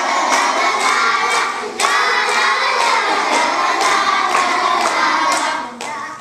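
A group of young children singing together, with hands clapping along to a steady beat. The singing stops near the end.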